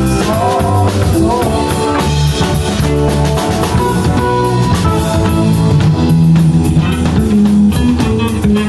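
Live rock band playing: electric guitars, keyboard and drum kit together, with drum hits keeping a steady beat under held guitar and keyboard notes.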